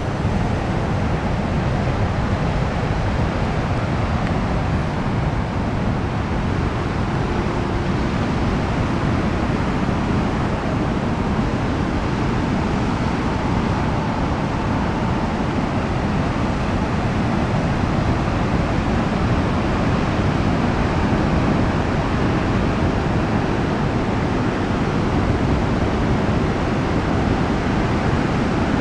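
Pacific surf during a king tide washing in over a rocky beach, heard as a steady, even wash of noise without distinct breaks.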